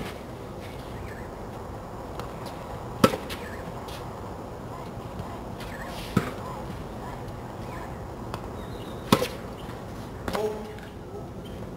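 Tennis racket striking the ball, four sharp hits about three seconds apart, with fainter knocks in between. A brief squeak about ten seconds in.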